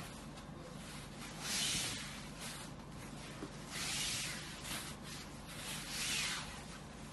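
Kanjivaram soft silk saree rustling as hands unfold and spread its pleats: about four soft swishes of the fabric, over a faint low hum.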